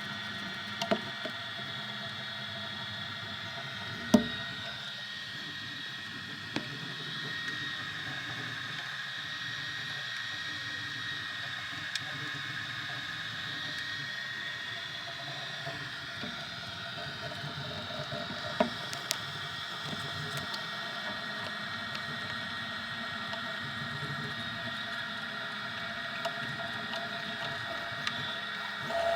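Easythreed X2 desktop 3D printer running a print: a steady whine from its stepper motors, with a few sharp clicks, the loudest about four seconds in.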